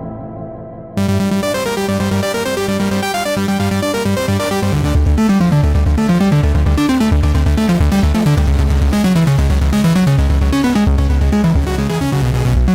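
Electronic synthesizer music: a fading sustained pad gives way abruptly about a second in to a busy sequenced synth pattern, joined by a pulsing bass line from about five seconds in.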